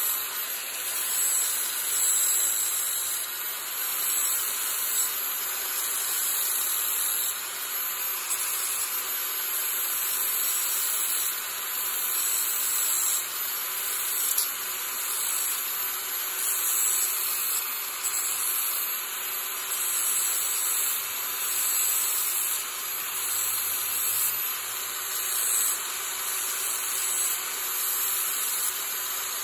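Ferrex angle grinder running steadily with an abrasive disc held against the edge of a 1 mm 304 stainless steel plate, giving a continuous high grinding noise. It is taking off the sharp corners and the burrs left by the bevel shear.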